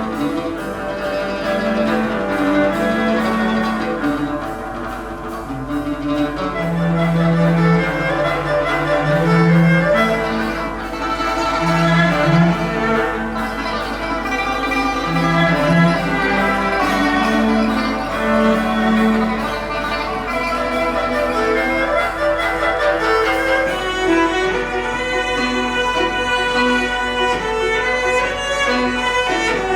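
A Chinese chamber sextet (erhu, dizi, pipa, yangqin, zhongruan and cello) playing, with bowed string lines from erhu and cello prominent over held low notes.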